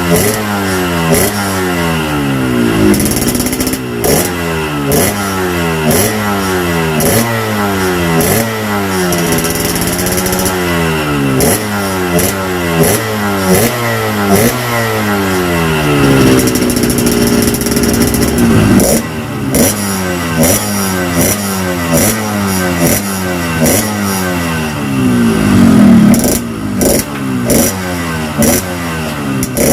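Yamaha RX-King's single-cylinder two-stroke engine revved in quick repeated throttle blips, about one and a half a second, with a steadier hold about halfway through. It is heard through its reworked, opened-up exhaust muffler, set up for a crisp, rasping note.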